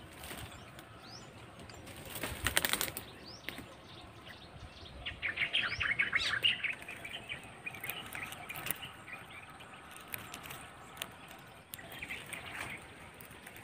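Leafy, thorny branches of a jackal jujube bush rustling with small clicks as fruit is picked by hand, loudest about two and a half seconds in and again around five to six seconds. A few faint bird chirps in the first seconds.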